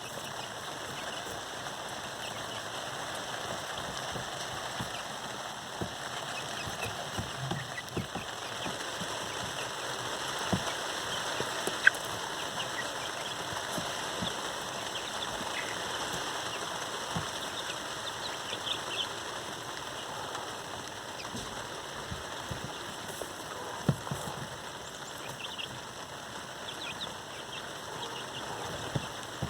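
Steady rain falling, with scattered drips and sharp taps now and then. Faint high peeps from young Orpington chickens come through a few times.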